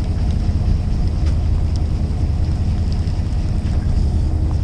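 A fishing boat's engine running with a steady low hum, with some wind noise on the microphone.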